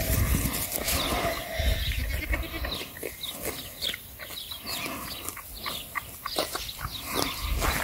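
Goat kid giving a short, faint bleat in the first two seconds, then a run of quick crisp clicks and rustles as a kid tears and chews grass close to the microphone. Wind rumbles on the microphone at the start.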